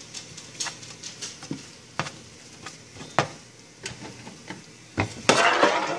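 Eggs sizzling in a frying pan while a spatula stirs them, scraping and clicking against the pan at irregular moments. A louder burst of noise comes near the end.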